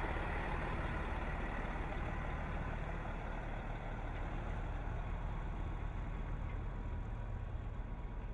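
Steady engine noise: a low, even hum with a faint high whine over it.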